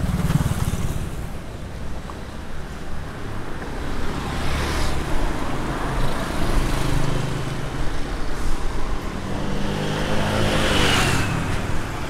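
Road traffic: motorbike and car engines running and passing on a street in a continuous rumble that swells and fades. The loudest pass comes near the end.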